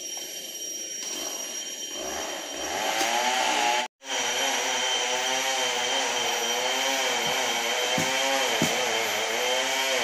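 A chainsaw engine running, growing louder about two seconds in and cutting out for an instant a little later. It then runs on steadily, its pitch wavering and dipping briefly several times.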